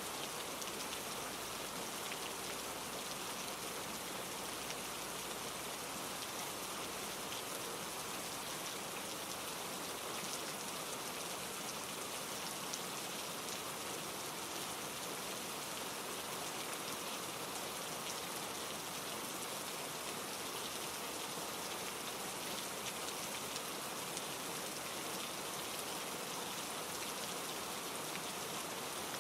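Steady rain falling on leaves and surfaces: an even hiss filled with fine pattering drops, unchanging throughout.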